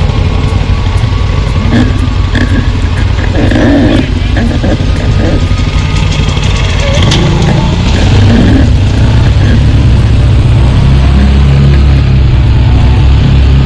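ATV engine running under way, getting louder and steadier about eight seconds in.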